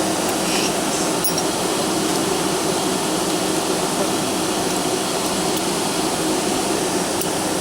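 Steady cabin noise inside a Boeing 757-200 airliner: an even rush with a low hum from the engines and air conditioning. Faint clicks come at about one second and near the end.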